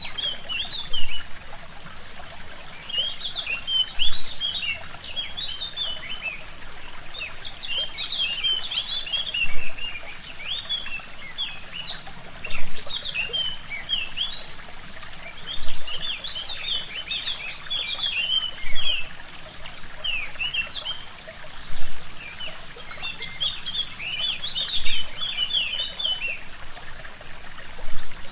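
Small forest stream trickling steadily while songbirds sing in repeated bursts of quick chirping notes, with brief louder surges roughly every three seconds.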